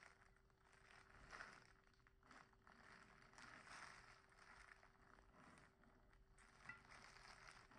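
Near silence: faint room tone with a low steady hum and a few soft rustles.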